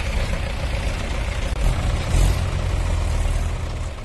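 Diesel tractor engines running steadily with a low rumble as a tractor sits stuck in mud, the rumble swelling briefly about two seconds in.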